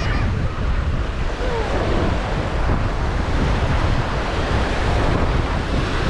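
Gulf of Mexico surf washing onto the beach, with wind buffeting the microphone in a steady low rumble.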